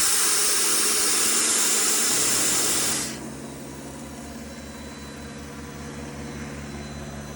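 Compressed air hissing loudly out of the torpedo air tank's drain valve, shut off suddenly about three seconds in. Under it and after it, the truck's 6.7 Power Stroke diesel runs with a steady low throb.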